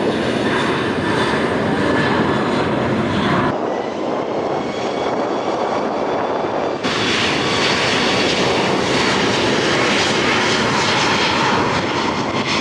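Jet engines of a Boeing 737 MAX 8 (CFM LEAP-1B turbofans) running loud and steady on the runway, a high whine over a broad rush as the airliner lines up and starts its takeoff roll. The sound changes abruptly twice where the recording is cut.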